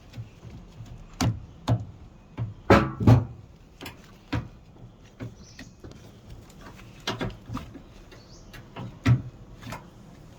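Sharp plastic clicks and knocks, about a dozen at uneven intervals, with the loudest cluster about three seconds in. They come from a replacement solenoid being pushed onto a washing machine's plastic water inlet valve and snapped into its hooks.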